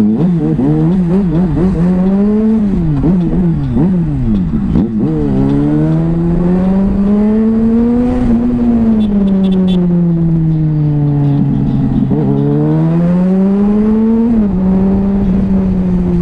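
Yamaha FZ6 Fazer's 600 cc inline-four engine revving in quick up-and-down blips for the first five seconds. It then pulls up and eases off in slow, smooth rises and falls. Near the end the pitch drops suddenly, as at a gear change, and it runs on steadily.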